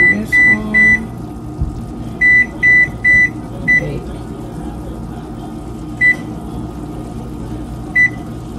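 Over-the-range microwave keypad beeping as its buttons are pressed: short, high, identical beeps, three quick ones, then three more, then single beeps every couple of seconds, over a steady low hum.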